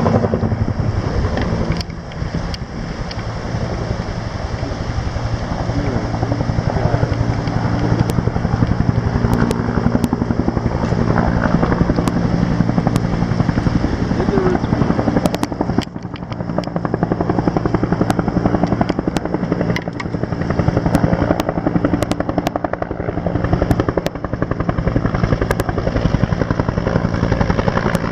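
Rescue helicopter running close by: a loud, steady, rapid chop of the rotor blades over the engine's drone, dipping briefly in level twice.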